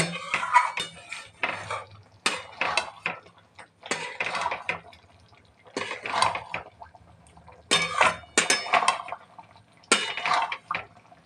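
Spatula stirring thick curry gravy in a metal kadhai, scraping against the pan in wet strokes every second or two.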